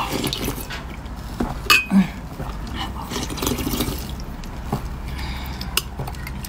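Soft coloured ice being eaten and scooped with a metal spoon from glass cups of liquid: wet dripping and splashing, with a few sharp clinks of the spoon against the glass, the loudest about two seconds in.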